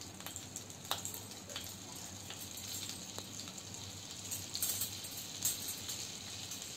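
Butter sizzling and foaming as it melts in hot oil in a non-stick pan, a steady light hiss, with a few sharp clicks of a steel spoon scraping butter from its small packet.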